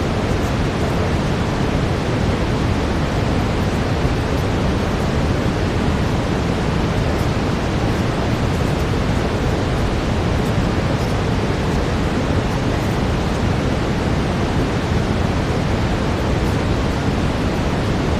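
Steady brown noise, a constant hiss that is heaviest in the low end, with no changes or events.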